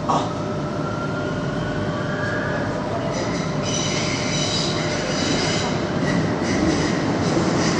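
Metro train running on its rails, with a short knock right at the start and wheels squealing in several high tones from about three seconds in.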